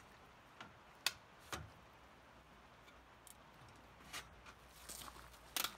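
Scattered light clicks and knocks of a mountain bike being set into a hitch-mounted tray bike rack, with a sharp click about a second in and a quick cluster near the end.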